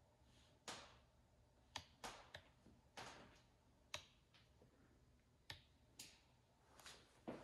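A dozen or so faint, irregular taps and clicks over near silence, a few of them trailing a short echo off the bare walls.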